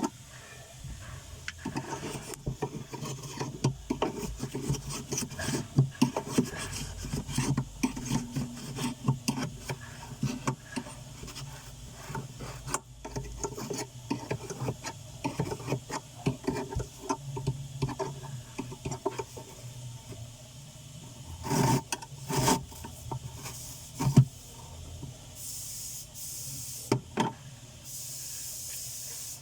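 Irregular scrubbing and rubbing strokes as the inside of a refrigerator freezer is cleaned, with a few knocks, and two stretches of hiss near the end.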